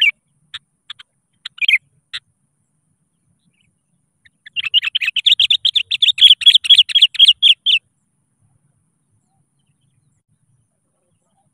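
Sooty-headed bulbul (kutilang) calling: a few short, sharp chirps in the first two seconds, then, about four and a half seconds in, a rapid chattering run of chirps lasting some three seconds.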